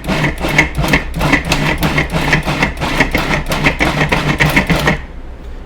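Food processor running, its blade chopping salmon into a potato, onion and tomato purée, with a steady motor hum and a fast, even knocking; it stops about five seconds in.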